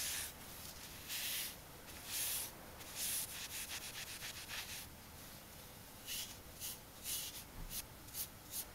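Polishing cloth rubbed along a knife blade to shine it: a few slow, long wipes, then a quick run of short rubs, then more spaced-out wipes near the end. Faint.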